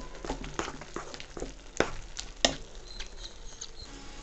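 Steel spoon stirring thick, sticky cornflour halwa in a pan, with irregular clicks and scrapes of the spoon against the pan. The mixture has cooked down and is coming away from the pan, the sign it is nearly done.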